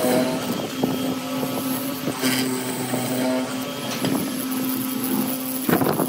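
MK361A hollow-chisel mortising machine running with a steady hum, its square chisel and auger plunging into a pine board and lifting out, with a few sharp knocks and a louder clatter near the end.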